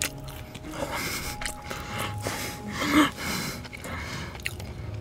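Close-miked mouth sounds of a person eating fried chicken: chewing with several breathy puffs of air. The loudest comes about three seconds in.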